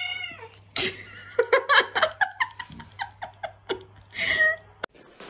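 A cat's protesting meow tailing off at the start, then a person laughing in quick short bursts for about four seconds; the sound cuts off abruptly near the end.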